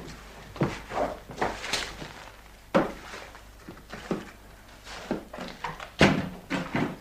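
A broom sweeping a floor: irregular swishing strokes and knocks, about two a second, the loudest about six seconds in.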